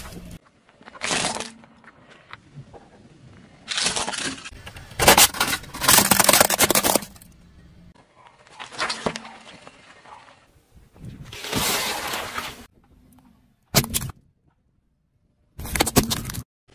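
A series of separate crushing sounds as a car tyre rolls over objects: cracks, crunches and pops, each lasting a second or two, with short quiet gaps between them.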